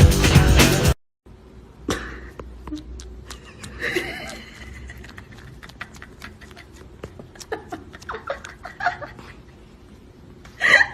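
Loud music stops abruptly about a second in; then a quieter home-video clip with a low hum, scattered clicks, a few short animal calls, and a sharper loud call near the end.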